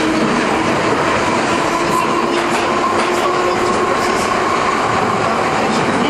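London Underground Piccadilly line train (1973 Stock) running at speed, heard from inside the carriage: a loud, steady rumble of wheels on rails with a faint motor whine that rises slightly in pitch.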